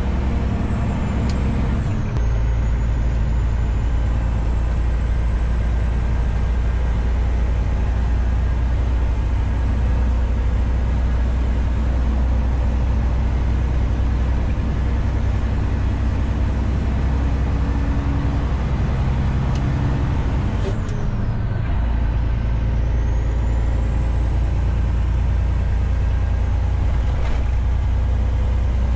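Semi-truck's diesel engine and road noise heard from inside the cab while driving, a steady deep rumble that dips briefly twice, about two seconds in and about twenty-one seconds in.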